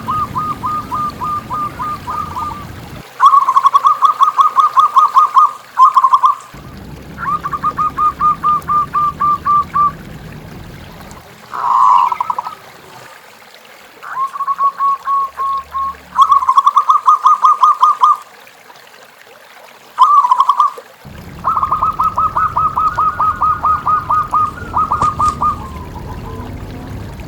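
Zebra doves (perkutut) cooing: repeated runs of rapid, staccato notes, each run lasting one to three seconds, with short gaps between them. A low background noise cuts in and out between the runs.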